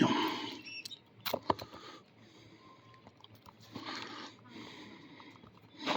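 A few faint, sharp clicks of a lock pick and tension wrench working the pins of a small padlock, with soft sniffs and breathing in between.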